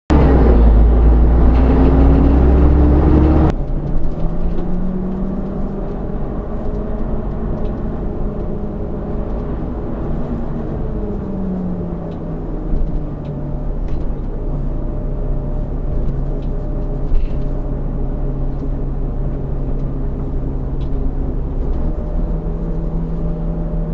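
Engine of the recording vehicle heard from inside the cab. For the first few seconds it is loud, with a pitch that climbs as it pulls away, then it cuts off abruptly. After that comes a quieter, steady engine hum whose pitch rises and falls as the vehicle creeps along at walking-to-jogging speed.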